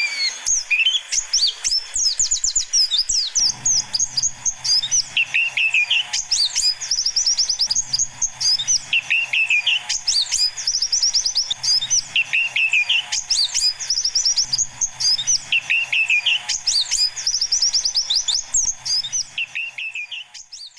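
White-eyes (pleci) chirping and singing in a busy chorus: rapid high twittering trills with a lower warbled phrase repeating every second or two. The sound fades out near the end.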